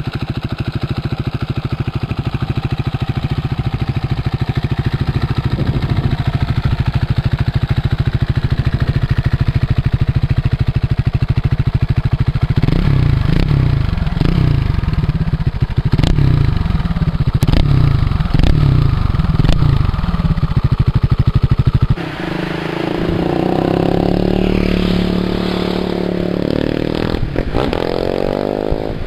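KTM 690 Duke's single-cylinder engine through an Akrapovič exhaust, idling with a fast, even beat. Partway through, it is revved in a series of short throttle blips. After an abrupt change near the end, it runs with its pitch climbing, as when accelerating.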